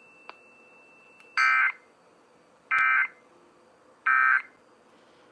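Emergency Alert System end-of-message data bursts: three short, loud digital warbles about a second and a half apart, signalling the end of the alert. A faint thin tone and a click come before them in the first second.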